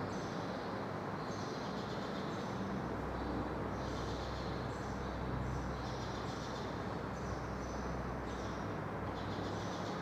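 Marker pen drawing on a whiteboard: repeated short scratchy strokes, one after another, over a steady low hum.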